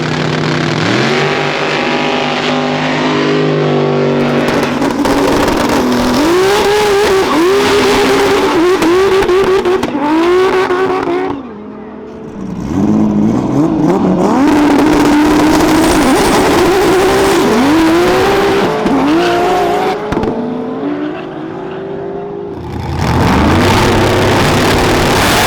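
High-powered cars accelerating hard down a drag strip, the engine note climbing and dropping back at each quick upshift, several runs one after another.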